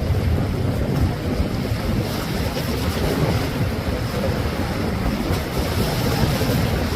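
Steady wind noise rumbling on the microphone over the wash of sea waves at a breakwater.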